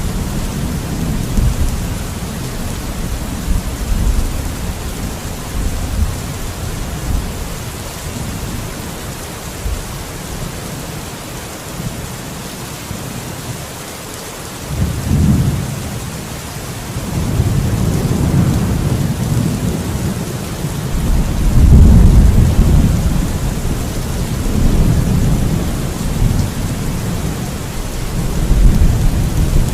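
Steady heavy rain with rolling thunder: the rumble fades down toward the middle, then a sudden crack about halfway through and long rumbles building to the loudest peal in the second half.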